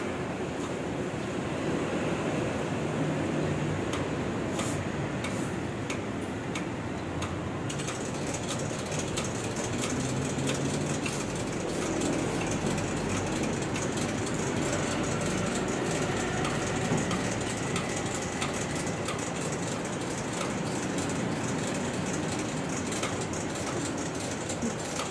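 Steady mechanical rumble and hiss, with scattered faint clicks.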